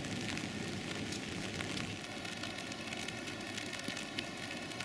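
Steady hissing outdoor background noise with faint scattered crackles.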